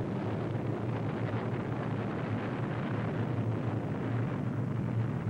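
Steady, unbroken low rumbling roar of a massive detonation.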